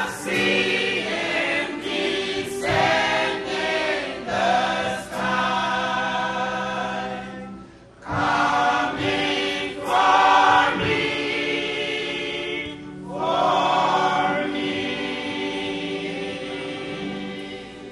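Church choir singing together in sustained phrases, with a short break about eight seconds in before the singing resumes.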